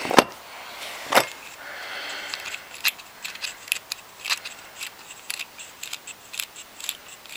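Small metal clicks and light scraping as the flint-spring screw is unscrewed from a Zippo lighter insert and the insert is handled, with two sharper knocks about a second apart near the start.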